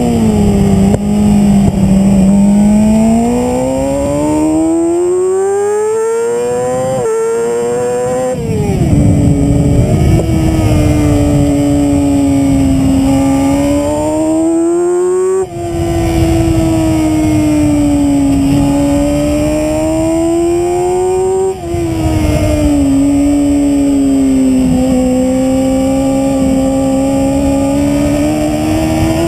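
Sportbike engine heard onboard at track speed: revs climb and drop back sharply at quick gear changes, then rise and ease again through the corners, with a couple of brief cuts in the sound. Wind rushes over the microphone.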